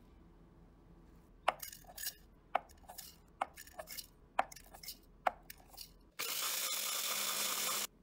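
A series of sharp taps and clicks as rolled oats are spooned into the plastic bowl of a mini food chopper, then the chopper runs for about two seconds, grinding the oats with a steady loud grinding noise, and cuts off suddenly.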